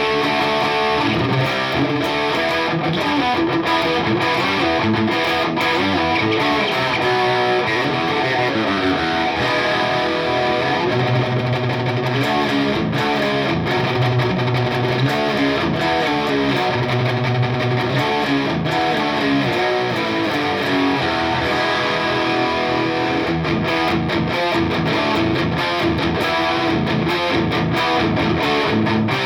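Eastcoast TM HH electric guitar played with a distorted tone, a continuous stream of riffs and chords.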